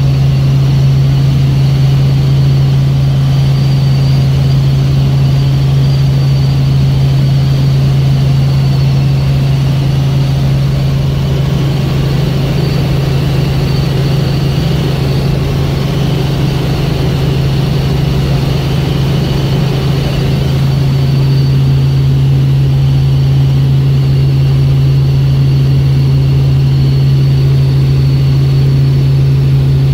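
Helicopter in cruising flight heard from inside the cabin: a loud, steady drone with a strong low hum and a thin high whine above it.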